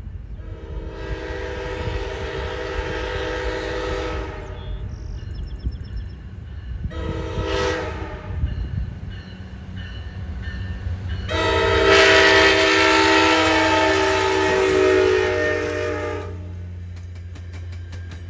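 Virginia Railway Express commuter train's horn sounding a long blast, a short one, then a loud long one as the train approaches, over the low rumble of its diesel. Near the end the passing bilevel cars' wheels click over the rail joints.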